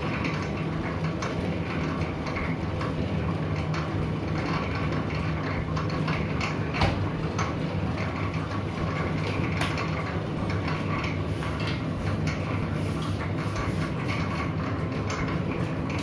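Motor-driven noodle-making machine running: a steady low hum with continual rattling and clicking from its rollers and gears, and one sharper click about seven seconds in.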